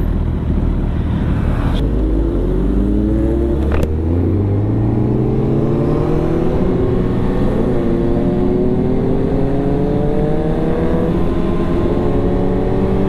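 Suzuki Hayabusa's inline-four engine pulling away and accelerating, its pitch climbing, dropping at upshifts about four and eight seconds in, then climbing again.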